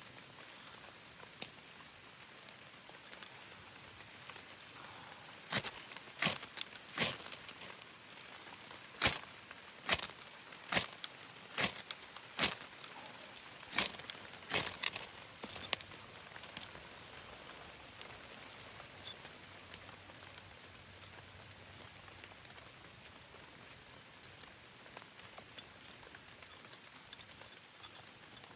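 Steady rain patter, with a run of about a dozen sharp snaps or clicks over about ten seconds in the middle.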